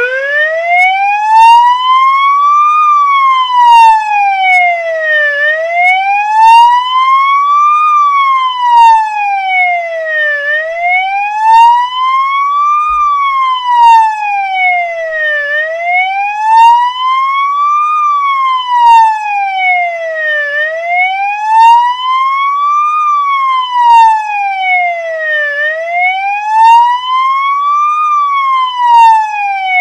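Police siren sounding a slow wail, its pitch rising and falling smoothly over and over, about one full cycle every five seconds.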